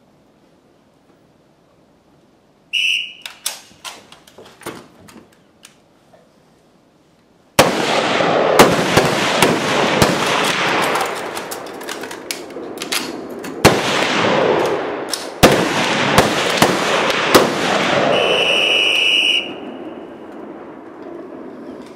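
A short referee's whistle blast starts a 15-second timed exposure. About five seconds later a relay of service rifles fires many shots, close together and overlapping, in a loud echoing string. A long whistle blast near the end marks the time limit.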